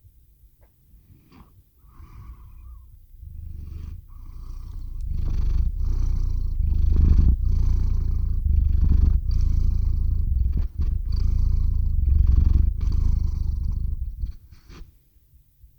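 Domestic cat purring right against the microphone: a deep rumble that fades in after a few seconds and runs with brief breaks between breaths, then stops near the end.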